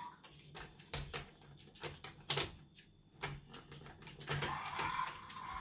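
Plastic clicks and knocks of small toy dinosaur figures being handled and pushed into a hard plastic toy cage, coming at irregular intervals.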